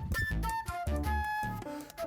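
Background music: a high, flute-like melody of short held notes over a steady low beat.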